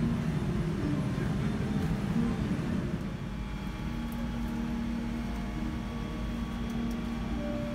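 Airliner cabin hum while the plane stands at the gate: a steady low drone of the cabin air and ventilation. About three seconds in, the mixed cabin noise settles into an even drone with a constant tone.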